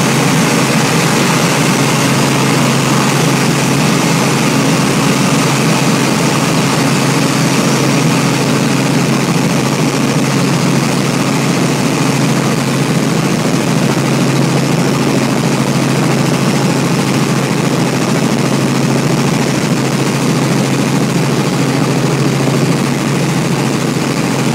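Light helicopter's engine and rotor running steadily in flight, heard inside the cabin: a loud, unchanging drone with a constant low hum under a wide rushing noise.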